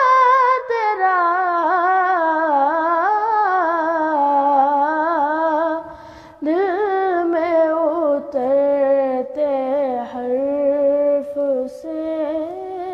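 A boy's solo voice reciting an Urdu naat, drawing out long, ornamented sung phrases that waver up and down in pitch, with a short pause for breath about six seconds in.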